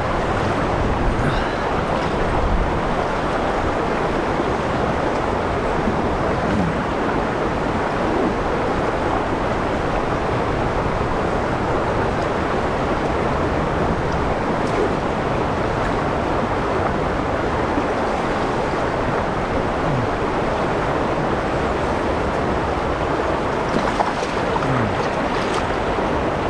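Fast-flowing river water rushing steadily over a riffle, a constant wash of white water, with a brief knock near the end.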